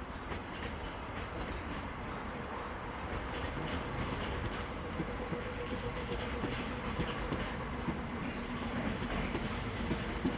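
Gatwick Express electric train running through the station, a steady rumble with the wheels clicking over rail joints as the coaches go by.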